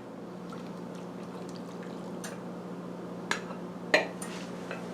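Hot water being poured into a baking dish of browned chicken and vegetables. Two sharp clinks come near the end, about half a second apart.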